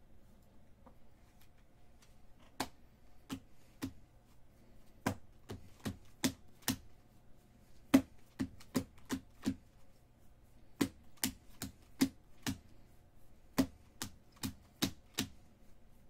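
Baseball trading cards snapping one after another as they are flicked through a stack by hand, in uneven runs of sharp clicks. The clicks start a couple of seconds in and pause briefly midway.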